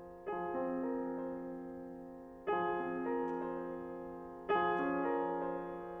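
Steinway D concert grand piano playing a slow, soft passage: a chord struck about every two seconds, three in all, each left to ring and fade while a few inner notes move within it.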